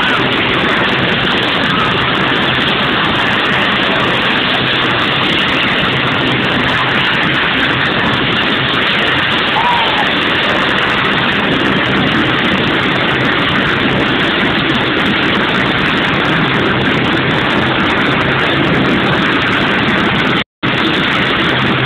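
Helicopter running, a loud steady noise with faint voices beneath it; the sound cuts out for a moment near the end.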